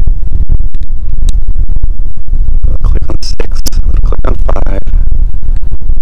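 Loud wind buffeting the microphone in uneven gusts, with a few scratchy scraping noises around the middle.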